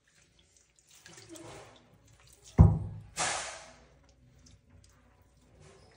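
Water sloshing and splashing in a shallow tub as a spider monkey scrubs herself with a wet washcloth. A dull thump comes about halfway through, followed at once by the loudest splash.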